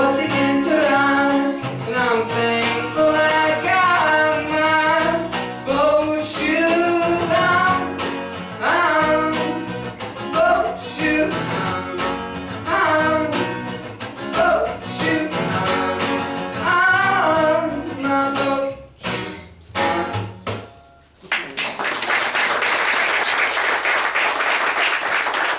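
Live singing with acoustic guitar through the end of a song, the last notes dying away about three-quarters of the way in. Audience applause fills the final few seconds.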